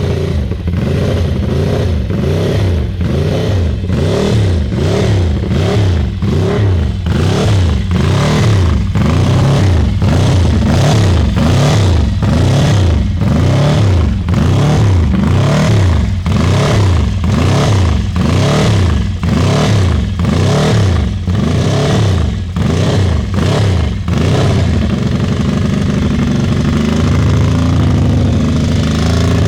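The 1978 Isle of Man TT-winning Ducati's 90-degree V-twin race engine being blipped over and over, its revs rising and falling a little more than once a second. About 25 seconds in it settles to a steady idle.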